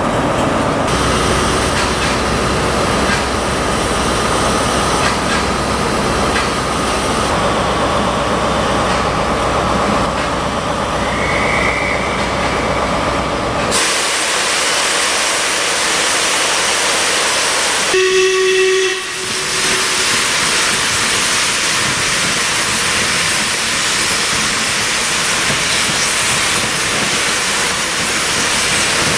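Steam locomotive 46233 Duchess of Sutherland, an LMS Princess Coronation Class pacific, hissing loudly with steam while at the platform. About 18 seconds in a short whistle sounds over the hiss.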